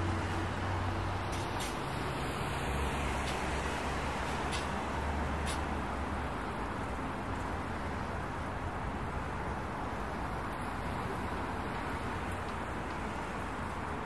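Steady road traffic noise from cars and trucks on a nearby road, with the low engine drone of a passing heavy vehicle that fades out about halfway through.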